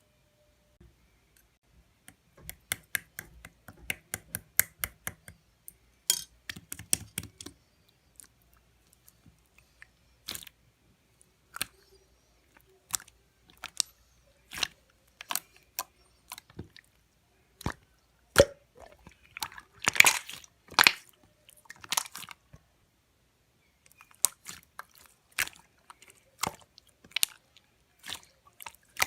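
Translucent slime being squeezed and pressed by hand, giving sharp sticky clicks and pops in quick runs with short pauses between, the densest and loudest run about two-thirds of the way in.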